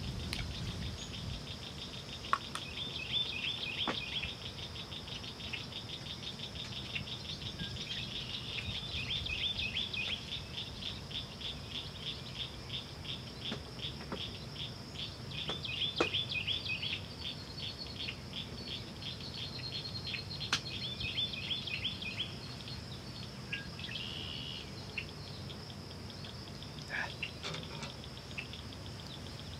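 Insects calling: a steady high drone throughout, with a fast pulsing trill that comes and goes over most of the first twenty seconds. A few faint clicks are heard here and there.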